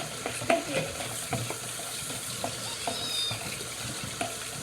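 A spoon stirring clear-glue slime in a bowl: irregular scraping with small clicks and wet crackles.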